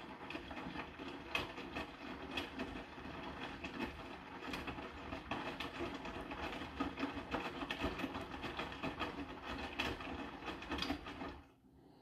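Hotpoint NSWR843C front-loading washing machine on its main wash: the drum motor turns the drum and the wet laundry tumbles inside, with many small knocks. The drum stops about eleven seconds in, ending one wash rotation.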